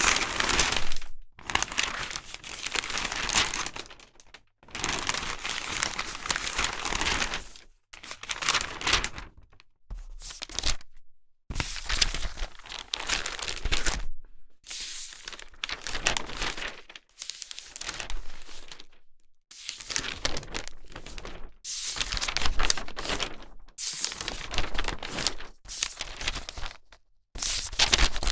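Sheets of newspaper being handled, rustling, crinkling and torn, in a string of separate bursts about one to two seconds long with short silent gaps between them.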